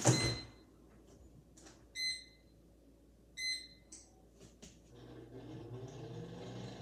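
Digital air fryer's control panel beeping a few times, short high beeps, as its settings are pressed. About five seconds in its fan starts, a low hum that rises in pitch as it spins up.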